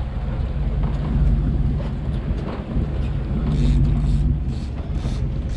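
Charter fishing boat's engine running steadily at trolling speed, a low even drone.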